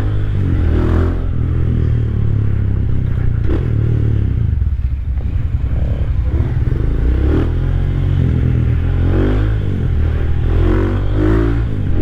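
Rusi Classic 250's single-cylinder 250 cc LX166FMM engine running on the road under way, a heavy low rumble with the engine note rising and falling as it is ridden hard.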